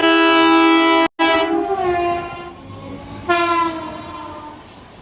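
Indian Railways train horn sounding a long, loud blast that cuts out for an instant about a second in, then dips slightly in pitch and fades; a second, shorter blast sounds a little past three seconds in.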